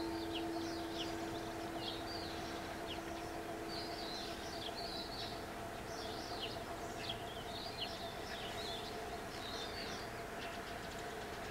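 Small birds chirping and twittering repeatedly, with the ring of the level-crossing bells dying away over the first few seconds and a faint steady hum underneath.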